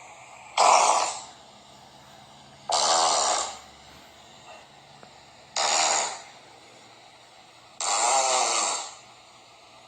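Four farts, each a raspy burst of under a second, coming about every two to three seconds.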